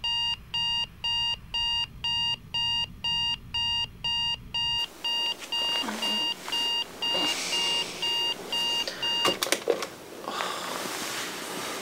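Digital alarm clock beeping, about two short electronic beeps a second, stopping after about nine seconds with a couple of sharp clicks as it is switched off. Bedclothes rustle afterwards.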